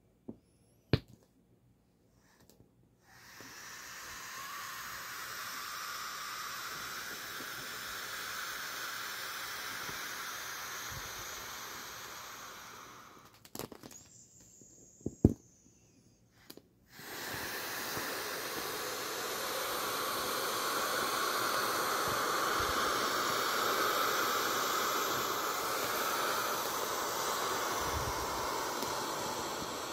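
Air hissing out of the opened valves of an inflatable vinyl Intex Wetset race car as it deflates. There are a few clicks as the first valve is pulled open, then a long steady hiss. About halfway through there is a pause with a few handling clicks, and then a second, louder hiss as another valve is opened.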